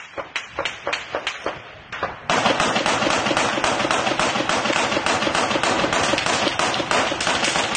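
Small-arms gunfire in combat: separate shots about three a second, then, about two seconds in, heavy continuous rapid fire breaks out and keeps on.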